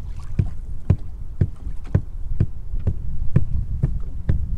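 Feet stomping on a boat's floor in a steady beat, about two heavy thumps a second. The stomping is meant to draw white bass under the boat.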